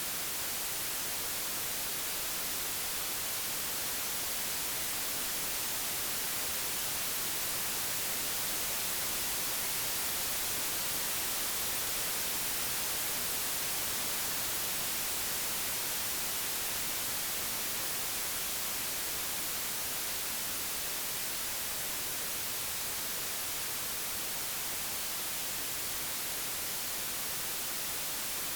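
Digitally generated white noise: a steady, even hiss with no changes.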